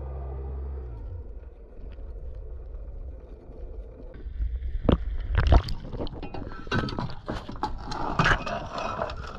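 Galvanized steel anchor and its chain being handled at the side of a small aluminum boat: a run of clanks and knocks from about four seconds in, the loudest near the middle, with wind buffeting the microphone. Before that, a steady low hum stops about a second in.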